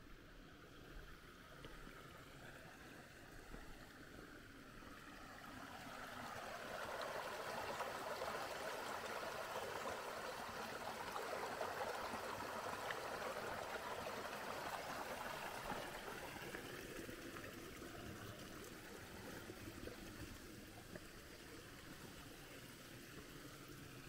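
Shallow creek water running, a rushing sound that grows louder from about five seconds in, holds strongest through the middle and fades again after about sixteen seconds.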